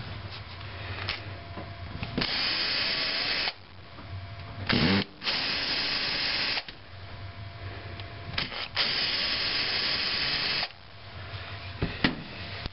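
Cordless drill-driver with a long hex bit running in three spurts of one to two seconds each, backing screws out of the rear plate of a nitro RC car engine. A short knock comes between the first two spurts.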